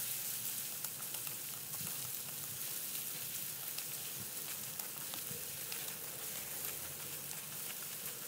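Coarsely pounded garlic frying in hot oil in a wok, a steady sizzle, while a slotted spatula stirs it with faint scraping ticks. The garlic is being fried until golden and crisp.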